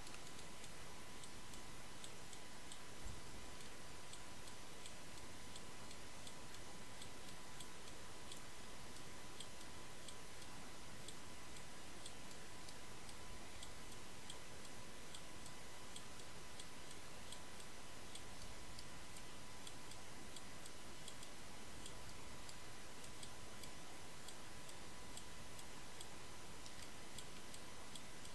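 Computer mouse clicking, many light irregular clicks over a faint steady hiss and a thin steady whine.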